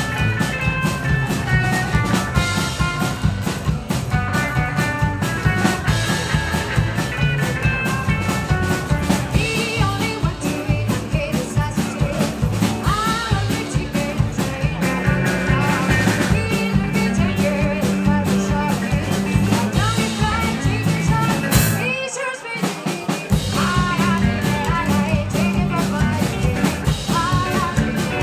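Live rock and roll band playing: electric guitar, strummed acoustic guitar, upright double bass and drums, with a woman singing lead from about a third of the way in. Near two-thirds through the band stops for about a second, then comes back in.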